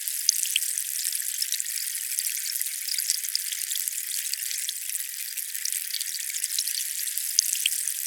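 Steady hissing water noise, crackling with many tiny ticks and pops, with no deep sound in it at all.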